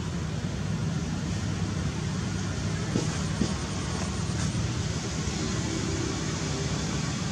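Steady low rumbling background noise, with no calls from the monkeys.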